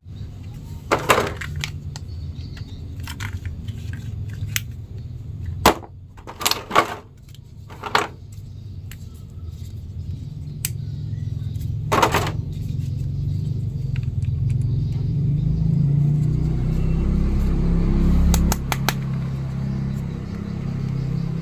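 Plastic action figures and their accessories handled over a plastic bag: scattered sharp clicks and crinkles, the strongest a little under halfway and about halfway through. Beneath them a steady low rumble grows louder in the second half.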